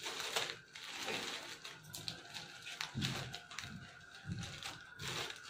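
Clothes being pulled out and unfolded by hand: irregular rustling and crinkling of fabric and packaging, with a few soft bumps.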